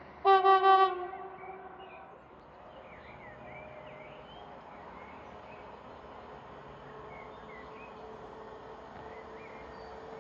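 Horn of an approaching Metrans class 386 Siemens Vectron electric locomotive hauling a container train: one short, loud blast with three swells about a quarter-second in. Afterwards the train's faint steady hum slowly grows louder as it draws nearer, with birds chirping.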